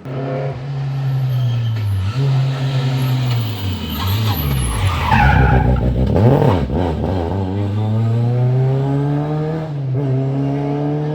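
Historic rally car engine revving hard as the car passes close by, its pitch climbing and dropping several times with gear changes and throttle lifts. A brief tyre squeal comes near the middle, where the car is loudest.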